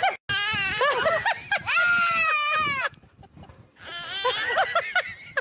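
Goat screaming in long, high-pitched, wavering cries, with a second round of shorter cries near the end.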